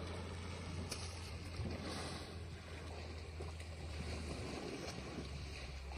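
Water splashing and lapping as African elephants wade and swim in a waterhole, over a steady low rumble.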